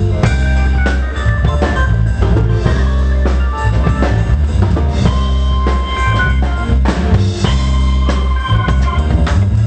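Live pop band playing a short piece at a sound check: drum kit with bass drum and snare keeping a steady beat over deep bass notes and held keyboard chords.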